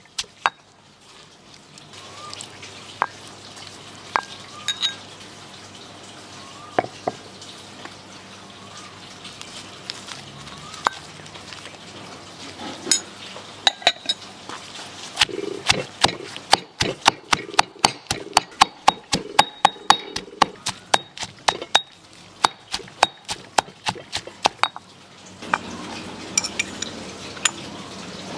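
Cooking utensils clinking and knocking in a restaurant kitchen. A few sharp knocks in the first half, then from about halfway a fast run of about four knocks a second, over a steady background noise.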